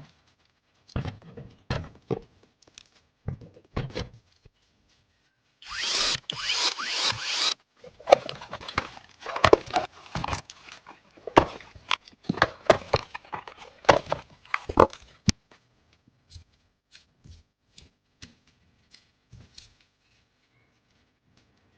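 Hands handling PC parts and their packaging: scattered taps and clicks, a scratchy rustle lasting about two seconds around six seconds in, then a busy run of clicks and rattles that thins out to a few faint ticks toward the end.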